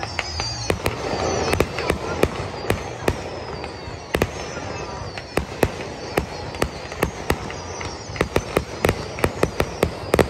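Aerial firework shells bursting in a rapid, irregular string of sharp bangs, coming thickest in the last two seconds.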